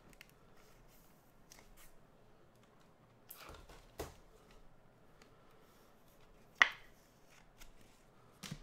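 Baseball trading cards handled and flipped in the hand: faint sliding and shuffling, with short clicks as the cards knock together. There is a click near the middle and a sharper, much louder one about three-quarters of the way through.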